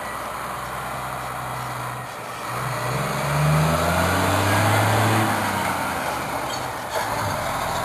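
Scania P114 420 8x4 dump truck's diesel engine driving past at close range. The engine note rises as it pulls through, is loudest around the middle, then fades.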